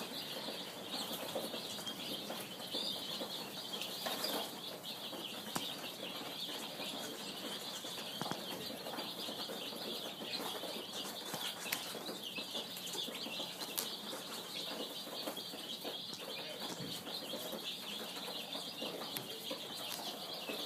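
Baby birds peeping and chirping continuously, many short high calls overlapping into a steady chatter.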